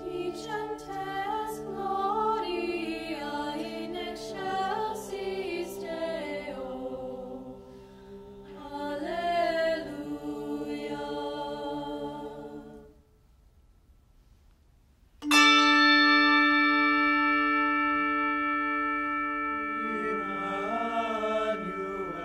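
Youth choir singing a cappella over steady held handbell tones. The voices stop for about two seconds, then handbells are rung together in a loud chord that rings on and slowly fades. The voices come back in near the end.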